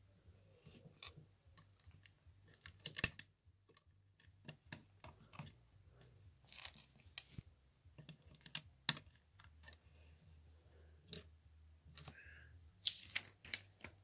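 Plastic LEGO bricks clicking and tapping as they are handled and pressed onto a model, in irregular small clicks with a few louder snaps about three seconds in and near the end.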